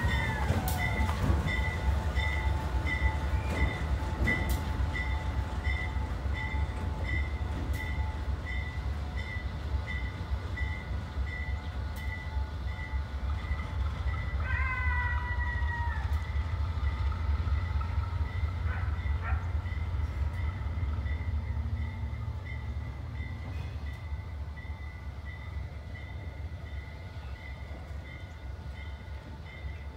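Diesel locomotives running slowly, a steady low engine rumble that fades over the last third as the nearer unit moves away. A bell rings steadily, a little under two strikes a second, and a short falling squeal sounds about halfway.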